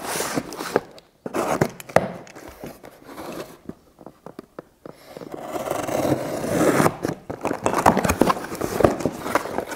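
Knife blade slicing through the packing tape on a cardboard box: scraping and rasping strokes of the blade along the tape and cardboard, then the cardboard flaps pulled open near the end.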